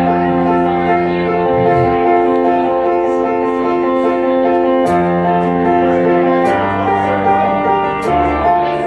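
Keyboard playing held chords, with the low notes changing every second or two and a few sharp accents in the second half.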